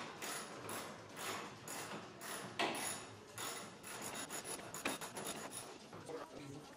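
Ratchet wrench being worked on a bolt in a car's engine bay: a rasping ratchet stroke repeated about twice a second.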